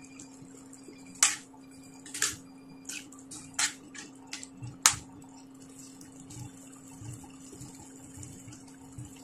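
Minced pork simmering in water in a stainless steel pan while a spatula stirs it, knocking and scraping against the pan about six times in the first five seconds. A faint bubbling and a steady hum sit under it throughout.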